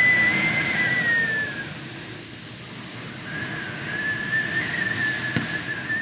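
Strong wind gusting, with a high thin whistle at a nearly steady pitch that fades out after a second or so and comes back, wavering slightly, about three seconds in. One sharp click about five seconds in.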